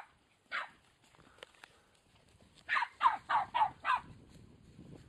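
Border Terrier barking in short, sharp yaps: one bark about half a second in, then a quick run of five barks around three seconds in.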